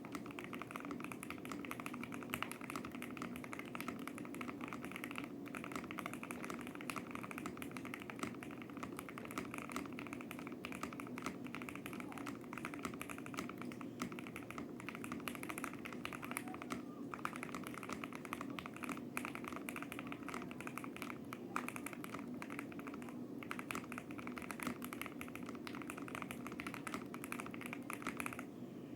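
Steady fast typing on a KBD Tiger Lite mechanical keyboard with Gateron Oil King linear switches: a dense, even run of key strokes, with a few brief pauses.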